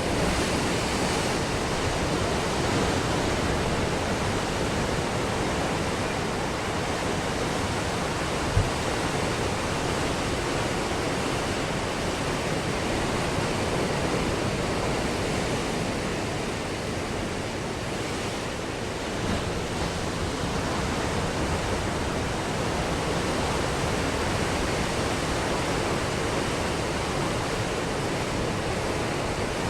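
Ocean waves breaking on a beach: a steady wash of surf that swells and eases slightly, with one brief low thump a little over eight seconds in.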